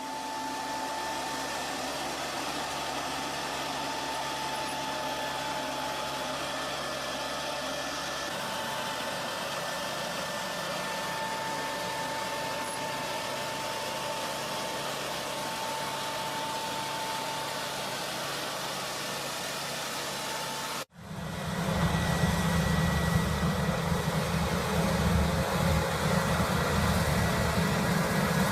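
A machine engine running steadily with a constant whine over it; after a sudden cut about three-quarters of the way in, a louder, deeper engine runs on.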